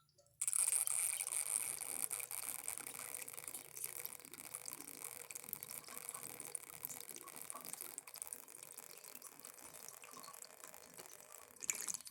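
Small 3D-printed model toilet flushing: water rushes through the bowl and the siphon tube, starting suddenly about half a second in and slowly easing off. It ends abruptly near the end with a short louder gush as the siphon breaks.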